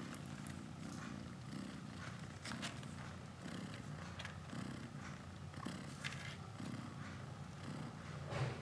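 Mother cat purring while her newborn kittens nurse: a low rumble that swells and fades with her breathing, under small scattered clicks, with a brief louder sound near the end.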